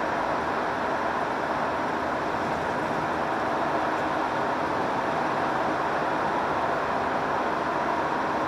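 Steady engine and road noise of a Hino Profia heavy truck driving at an even speed.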